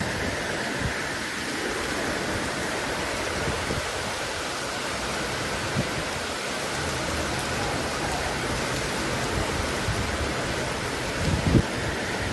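Heavy cyclone rain falling steadily, with irregular low rumbling beneath and a brief sharp thump near the end.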